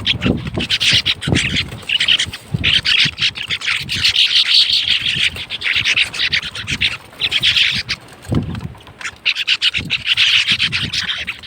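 A flock of sparrows chirping in a dense, continuous chatter of quick, high chirps, broken by short pauses. Some low thumps come at the start and again about eight seconds in.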